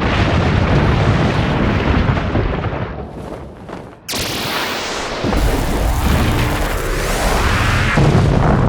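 Designed explosion and blast sound effects: a dense, heavy rumble fades down about three seconds in, then a sudden blast hits about a second later and a loud low rumble carries on.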